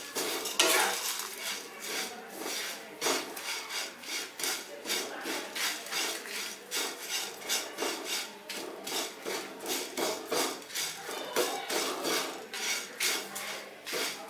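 Spatula stirring curry leaves, dried red chillies and urad dal as they dry-roast in a kadai: the leaves rustle and the spatula scrapes the pan in a steady rhythm, about two strokes a second.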